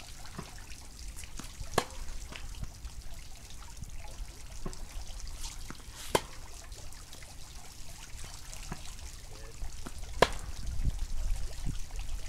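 Yonex VCORE Tour G tennis racket striking the ball on groundstrokes three times, about four seconds apart, with fainter knocks between them over a steady background hiss.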